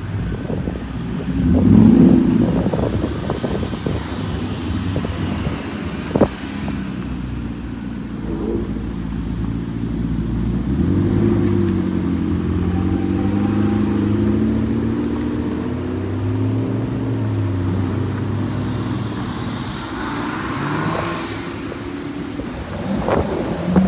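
Sports cars and supercars driving past one at a time, engines revving as each pulls away, loudest about two seconds in.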